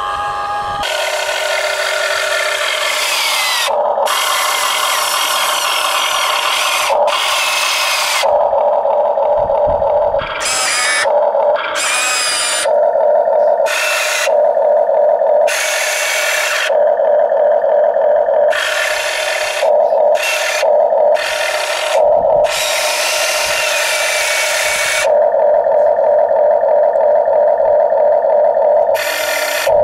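Electric motors and gearboxes of a Huina RC excavator whining in stop-start bursts, from under a second to several seconds long, as its boom, arm and bucket move while digging. A steady hum carries on between the bursts.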